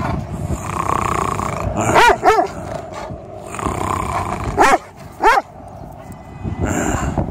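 Doberman barking: two pairs of sharp barks, about two seconds in and again about five seconds in, with the dog growling in between.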